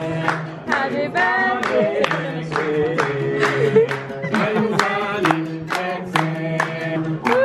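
A group of male voices singing a birthday song together, kept in time by a steady beat of about two strokes a second.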